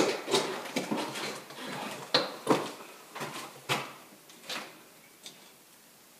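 Irregular sharp clicks and knocks of hand tools and wire connections being handled as old knob-and-tube wiring is taken apart, thinning out over the last couple of seconds.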